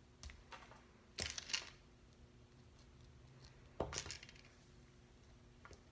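Light plastic clicks and taps from a small LOL Surprise doll and its tiny clothes being handled: a few small clicks, a quick cluster about a second in, and a sharper click near four seconds.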